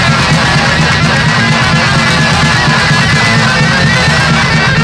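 Loud crossover-thrash music: distorted electric guitars with a fast, dense backing and no singing.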